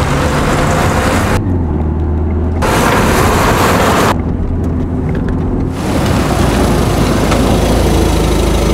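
A car driving on a road: loud engine and tyre noise that starts abruptly and changes sharply every second or two, at times losing its high end and sounding duller.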